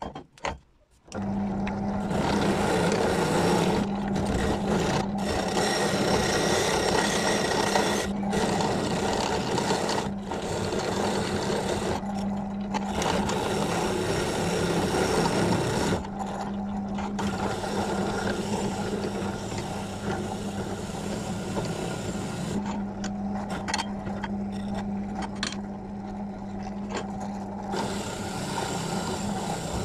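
Electric power tool motor running at a steady speed with a constant hum and rattling working noise, starting about a second in and briefly cut off several times.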